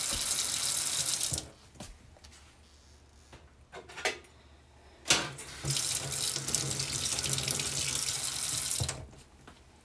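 Kitchen tap running into a sink, shut off about a second and a half in, then running again from about six to nine seconds. A few knocks fall in between, the loudest about five seconds in.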